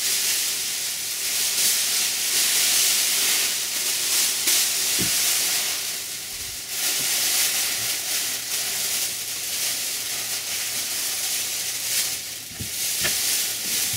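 Thin foil emergency blankets crinkling and rustling as they are handled and lifted, a continuous crackly hiss, with a few soft knocks.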